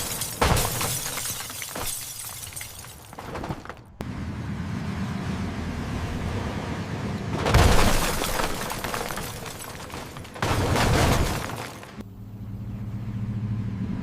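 Car crash sound effects: a run of loud crashes with breaking, shattering glass, each decaying before an abrupt cut to the next. The sharpest hit comes just after the start, the biggest about halfway through, another about three quarters in.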